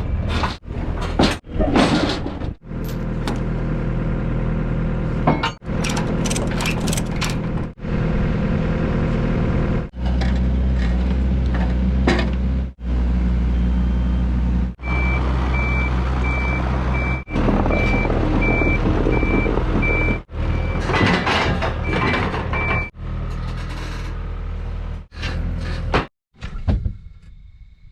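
Heavy diesel machinery running, heard in a string of short clips that cut abruptly one to the next. In the middle a backup alarm beeps steadily for about eight seconds.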